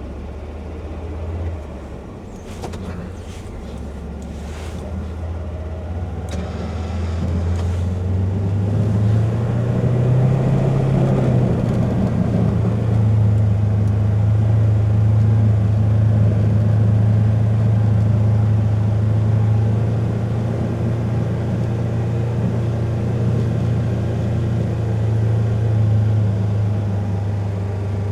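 Polaris Ranger XP 1000's twin-cylinder engine running steadily while the UTV plows heavy wet snow, its note rising and growing louder over the first ten seconds, then holding. A few short knocks a few seconds in.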